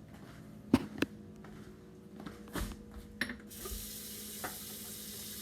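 Kitchen clatter: two sharp clacks about a second in and a few lighter knocks, then a steady hiss starts about three and a half seconds in.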